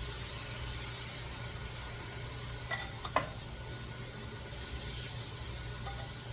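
Chicken pieces sizzling in a hot frying pan, a steady hiss, with two short clinks about three seconds in.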